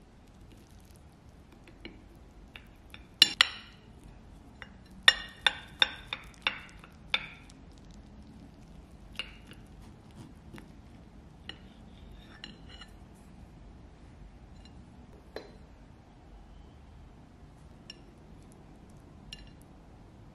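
Glassware, dishes and cutlery clinking: two sharp ringing clinks about three seconds in, then a quick run of about six more, then scattered lighter taps.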